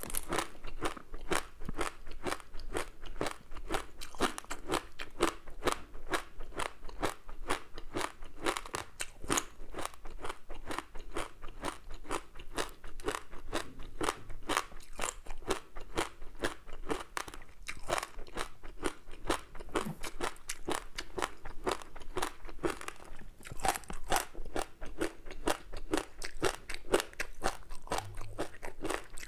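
Close-miked chewing of a crispy seaweed-wrapped rice snack: a dense, irregular run of crunches and crackles, several a second, as the crisp seaweed coating breaks between the teeth.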